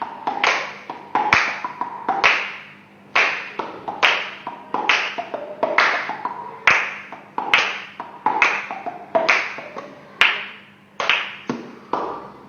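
A string of sharp taps, roughly two a second at an uneven pace, each fading away quickly.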